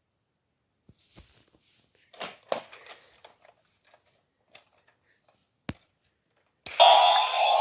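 A few faint plastic clicks and knocks from handling a toy electric helicopter. About a second before the end, its electronic sound effect switches on loudly: a steady drone with a tone slowly rising over it, the toy's war-plane and helicopter sound.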